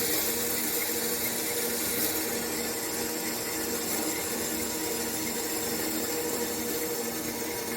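Arc welding: a steady crackling hiss from the welding arc, with a faint steady electrical hum underneath.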